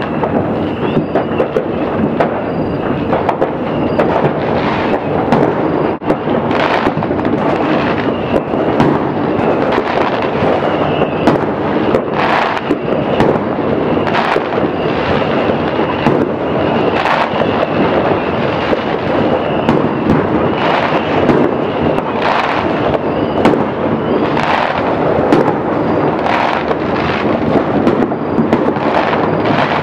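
Fireworks and firecrackers going off all over a city at once: a continuous rumble of distant bangs and crackling, with frequent louder reports standing out.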